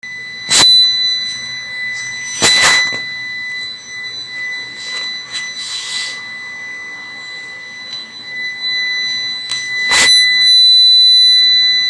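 UPS alarm buzzer sounding one continuous, high-pitched long beep, growing louder from about ten seconds in, with three sharp knocks at about half a second, two and a half and ten seconds in. The long beep is the UPS's warning that its battery is worn out.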